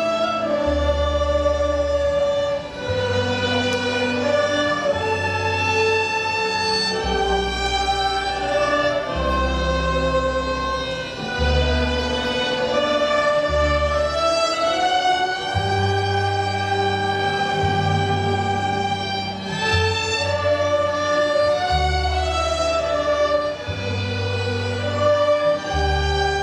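School orchestra of violins, cello and transverse flutes playing a piece in long held notes, the bass changing every second or two.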